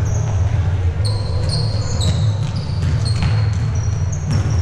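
Indoor basketball game: many short, high-pitched sneaker squeaks on the court floor and a ball bouncing, over a steady low rumble.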